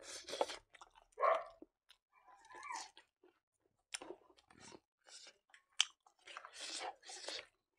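Close-up eating sounds of a man chewing rice and pork with his mouth near the microphone, in irregular bursts with a few sharp clicks between them.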